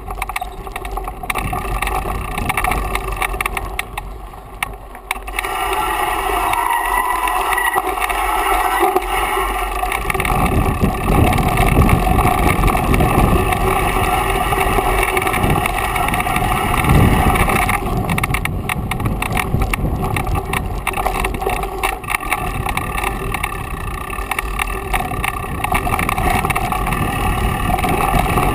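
Mountain bike rolling down a dry dirt singletrack: tyre and bike rattle mixed with wind buffeting the point-of-view camera's microphone. The low wind rumble grows stronger about ten seconds in, as the bike picks up speed.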